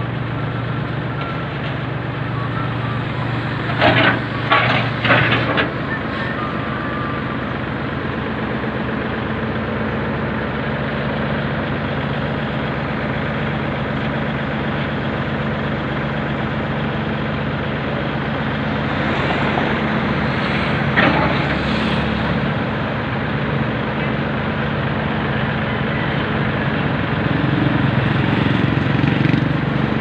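Tracked rice combine harvester's diesel engine running steadily as the machine drives up to a trailer for loading. A few sharp knocks come about four to five seconds in and another around twenty-one seconds.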